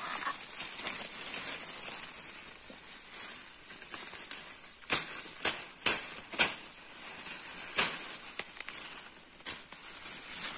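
Steady high-pitched drone of insects, with five or six sharp cracks or knocks close together between about five and eight seconds in.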